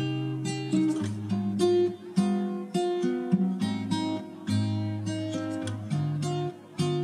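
Background music: an acoustic guitar playing plucked notes over a bass line.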